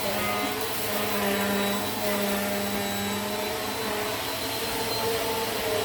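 Eureka AirSpeed Plus (NEU110) compact vacuum cleaner running steadily while vacuuming carpet, a constant motor hum under the rush of air.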